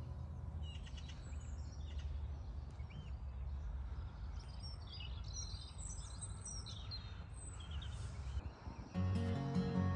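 Outdoor ambience of small birds chirping and singing in short high calls over a steady low rumble. Acoustic guitar music comes in about nine seconds in.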